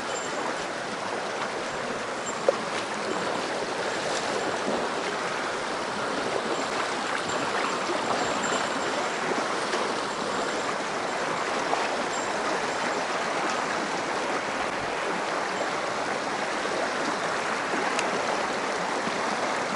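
Mountain stream water flowing steadily, with a single sharp click about two and a half seconds in.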